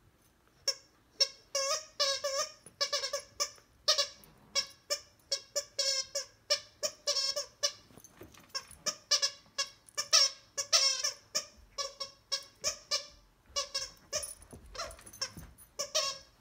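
Plush mallard duck dog toy's squeaker squeaking again and again as a husky puppy bites and chews it, short squeaks of the same pitch coming two or three a second, starting just under a second in.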